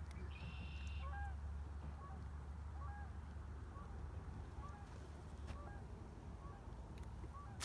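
Water birds honking repeatedly in short calls, faint, over a steady low rumble.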